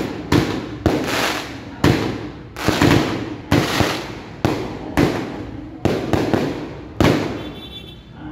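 Fireworks display: a rapid series of sharp bangs, about one or two a second, as aerial shots launch and burst, each bang trailing off before the next.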